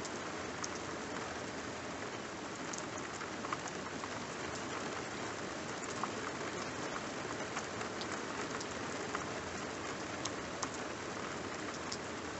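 Rain falling steadily on a wet tarmac road and grass, with scattered sharp ticks of single drops.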